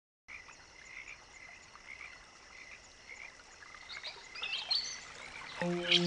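Nature-sound ambience: a steady chorus of calling animals, a regular pulsing call under high continuous trilling, with a few chirps over it. Near the end soft sustained music notes come in and become the loudest sound.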